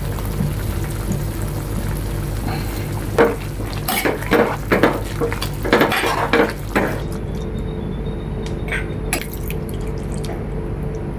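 Kitchen utensils clattering against pots and dishes: a run of knocks and scrapes between about three and seven seconds in, over a steady low hum.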